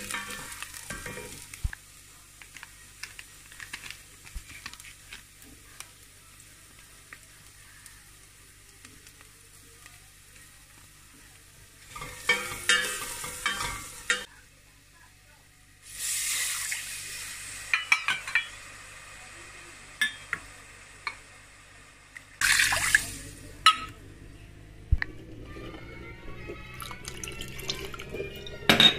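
Wooden spoon stirring and scraping in a stainless steel pot, with a few short bursts of sizzling as ingredients hit the hot oil. Over the last few seconds, liquid pours into the pot.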